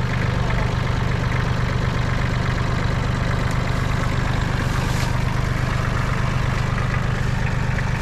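Shibaura D228 compact tractor's diesel engine idling steadily, an even low hum with no revving.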